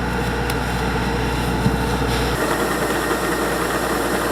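Kubota DC-105X rice combine harvester running steadily, its diesel engine and machinery making a dense, even noise. About two and a half seconds in, the deep hum drops away and the noise shifts.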